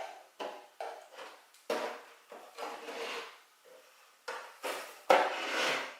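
Wooden clock-case doors being opened and shut by hand: a series of sharp wooden knocks and clicks, with a short stretch of rubbing between them.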